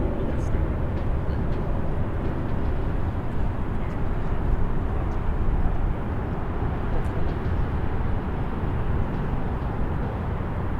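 Distant highway traffic: a steady low rumble of many vehicles, with a few faint ticks above it.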